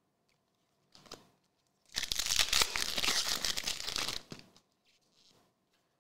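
Plastic-foil wrapper of a Select AFL Legacy trading card pack being torn open and crinkled for about two seconds, starting about two seconds in.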